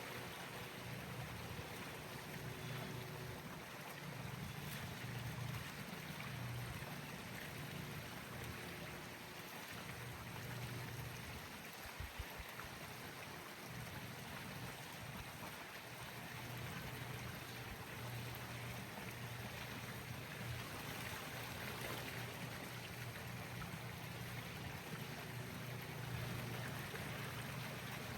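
Steady low mechanical hum that swells and dips slightly, under an even rushing noise, with a brief knock about twelve seconds in.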